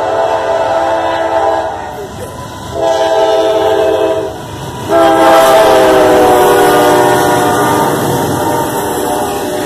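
CSX diesel locomotive's air horn sounding a chord in three blasts: one ending about two seconds in, a short second blast, and a long final blast from about five seconds in that drifts lower in pitch as the locomotive passes close by. The rumble of the passing freight train runs underneath.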